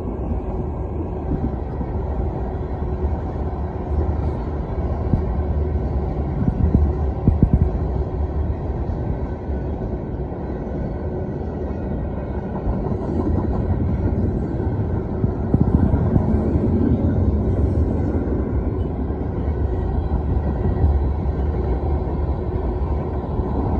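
Freight train cars rolling past at speed: a steady rumble of steel wheels on the rails with scattered clatter.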